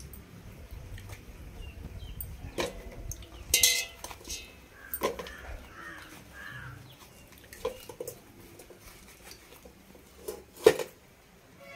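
Scattered clinks and knocks of a stainless steel pot and a knife being handled while jackfruit bulbs are moved in and out of the pot, with a brief rustle a few seconds in. The loudest is a single sharp clank near the end.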